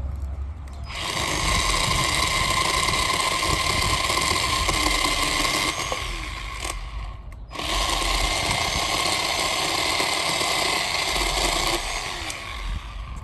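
Bauer 20-volt cordless 10-inch electric chainsaw running with a steady whine while cutting through a log, in two long runs about a second in and again about seven and a half seconds in, with a short pause between.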